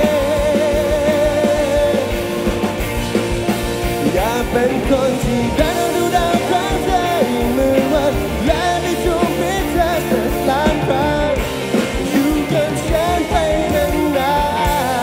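Live band playing a pop-rock song: a male lead vocal sung into a handheld microphone with vibrato, over electric guitars, electric bass and drums.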